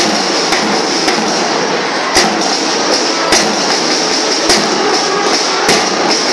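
School marching band (band melam) drumming: fast, continuous snare drumming with a heavy bass-drum and cymbal hit about once a second.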